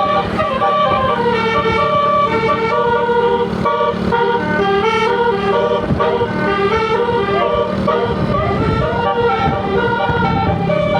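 Tour bus telolet basuri musical horn playing a melody of stepping notes, over a low rumble.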